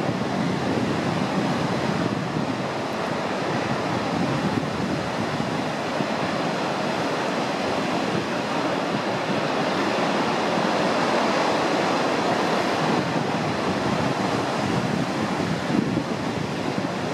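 Ocean surf breaking on a beach: a continuous wash of waves, swelling a little louder a little past the middle.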